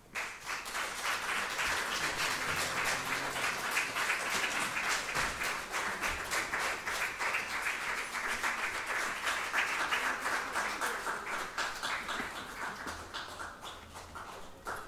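Concert audience applauding, starting all at once and tapering off near the end.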